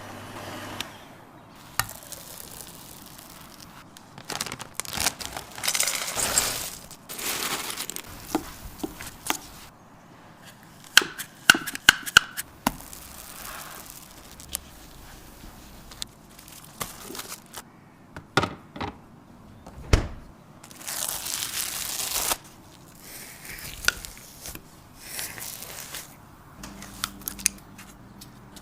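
Irregular crinkling, rustling and tearing sounds, like paper or wrapping being handled, broken by scattered sharp clicks and light knocks, with a cluster of louder clicks about halfway through.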